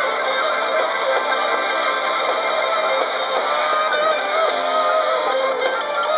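Rock music with electric guitar and a steady beat, played through tiny portable speakers that give it little bass.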